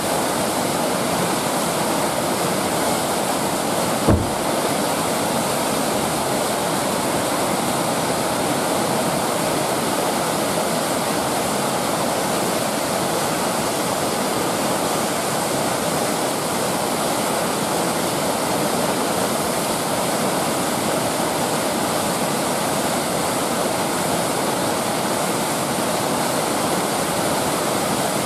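Whitewater river rapids rushing, a steady, even wash of water noise. A brief low thump about four seconds in.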